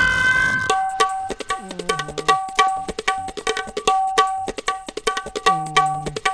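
Background film music: tabla playing a fast, even rhythm under a simple melody, after a held opening note. Twice, a low bass stroke slides down in pitch.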